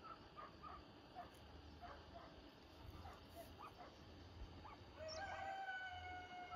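Faint scattered short bird calls, then about five seconds in a rooster crows, ending on one long held note of about a second and a half.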